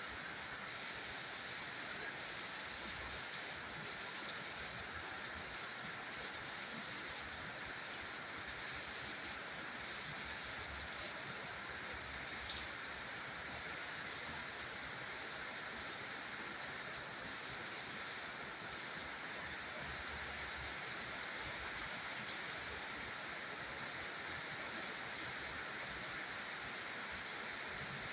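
Steady rain falling, an even hiss with no letup, and a single light tick about twelve seconds in.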